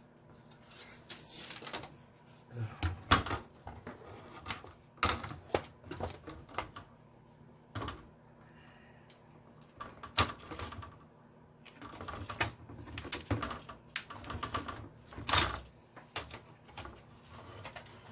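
Irregular clicks and clatters of thin sheet metal as pieces of a Commodore 64's RF shield are pried loose and handled.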